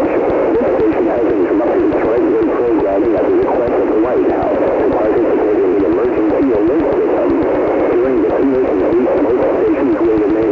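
Continuous jumbled audio with a thin, radio-like sound: many wavering pitches overlapping into a garbled mess, like distorted voices or music mixed together, with no clear words and no alert tones.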